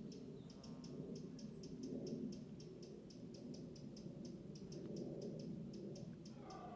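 Deer stag calling in woodland: low calls that swell and fade. A fast, steady, high ticking of about five a second runs underneath.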